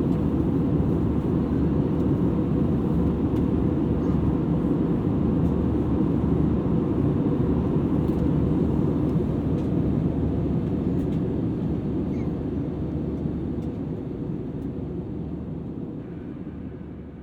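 Airbus A320-200ceo cabin noise in cruise, heard from a rear seat: a steady low roar of engines and airflow. It fades out gradually over the last several seconds.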